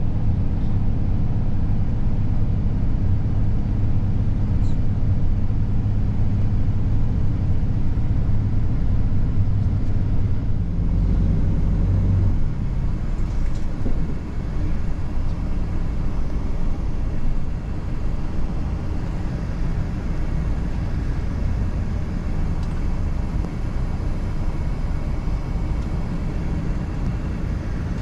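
Bus engine running, heard from inside the passenger cabin: a steady low drone whose note changes about twelve seconds in, after which it goes on as a rougher, slightly quieter rumble.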